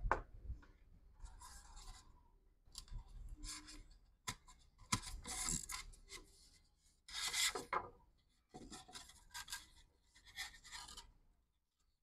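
Rubbing and scraping of a polystyrene foam board and a rubber-sheathed power cord being handled, as the cord is pushed through the foam. It comes in several separate stretches of about a second each, with a few sharp clicks.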